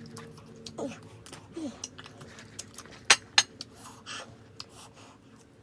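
Tableware clinking during a meal: two sharp clinks about a quarter second apart, about three seconds in, among quieter handling and eating sounds.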